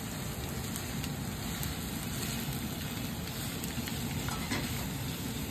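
Raw ground pork sizzling steadily in a hot frying pan of sautéed vegetables, with a few light scrapes and taps from a slotted spatula spreading the meat out.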